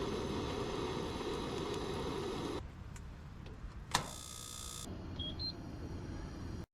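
Background song ending about two and a half seconds in. Then a sharp click, a short buzzing electronic tone that cuts off abruptly, and two brief high beeps.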